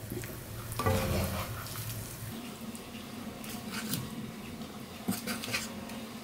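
Wooden spatula and tongs scraping and tapping against a nonstick frying pan and a ceramic plate as pieces of glazed braised chicken are lifted from the pan onto the plate: a few light, irregular clicks and scrapes, the loudest about a second in.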